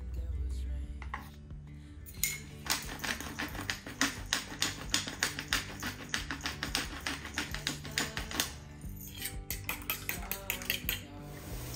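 Eggs being whisked in a ceramic bowl: a metal utensil clicks quickly and repeatedly against the bowl from about two seconds in, pauses briefly, then goes on, over soft background music.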